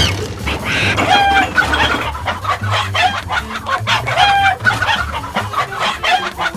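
Cartoon sound effect of a chicken clucking: a run of short clucks, the same run heard again about three seconds later, over a steady low rumble.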